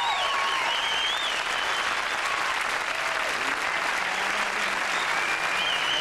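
Studio audience applauding and cheering at the end of a song, as the band's final chord dies away about half a second in.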